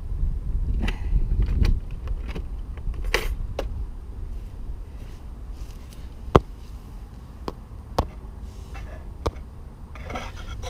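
Plastic wash buckets being set down on a gravel drive, with a low rumble of handling over the first two seconds, then a few separate sharp clicks and knocks, the loudest about six seconds in.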